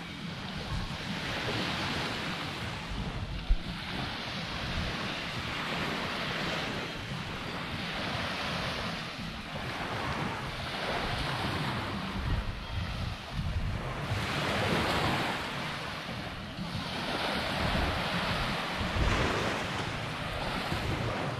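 Small waves washing onto a sandy beach in repeated surges, with wind rumbling on the microphone and one brief knock about three and a half seconds in.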